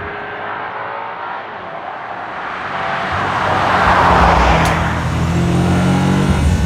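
BMW M5 G90's 4.4-litre twin-turbo V8 under acceleration, quieter for the first couple of seconds, then swelling about halfway into a loud engine note with a single sharp click just after the peak. The sport-mode M Sound setting is on, which adds piped-in engine sound.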